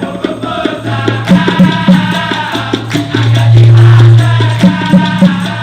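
Dikir barat ensemble playing: a male chorus singing over dense hand percussion with rattling shakers and a strong low sustained tone.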